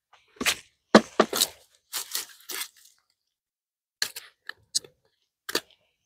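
Oyster shells crunching and clacking as they are gathered by hand: a quick run of sharp cracks in the first three seconds, then three single clacks about a second apart.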